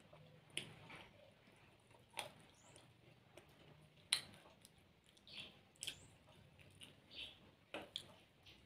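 Close-up eating sounds from a person eating by hand: soft chewing and mouth noises, with a few sharp clicks, the loudest about four seconds in, as fingers pick food from a glass plate.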